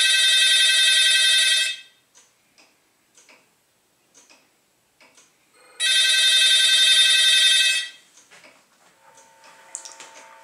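Coca-Cola poster wall-mount phone ringing: two rings of about two seconds each, the second starting about six seconds after the first.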